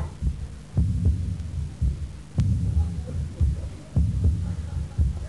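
Amplified heartbeat thudding through a sound system: deep, paired beats at a steady pace of a little over one a second.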